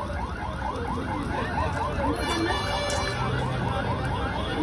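A rapidly repeating electronic chirp: a short rising tone sweep about five times a second, like an alarm.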